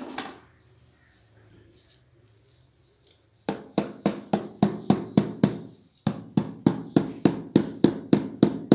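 Small hammer tapping steadily on a ceramic wall tile set in cement mortar, about three sharp taps a second, each with a short ring. The tapping starts about three and a half seconds in and pauses briefly near six seconds. A single knock comes at the very start.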